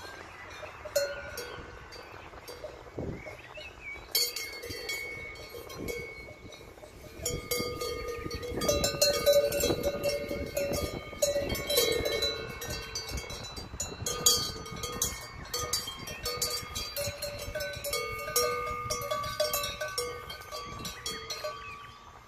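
Cowbell on a grazing cow's leather collar clanking and ringing irregularly as the cow moves its head. The clangs start about four seconds in and come thickest in the middle.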